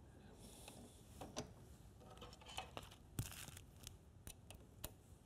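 Faint, scattered small clicks and light ticks from hands working the metal parts of a Dillon RL550C reloading press, with one sharper click about three seconds in.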